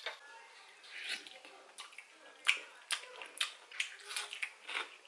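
A series of light, irregular clicks and taps, about a dozen in five seconds, with no steady sound under them.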